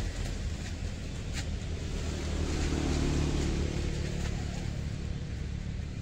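Low, steady hum of a passing motor vehicle's engine, growing louder about halfway through and then easing off.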